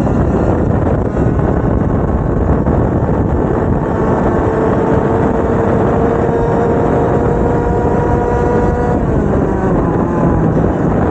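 Two-stroke racing kart engine running hard under dense low rumbling noise. Its pitch climbs slowly for several seconds, then falls away about nine seconds in as revs drop.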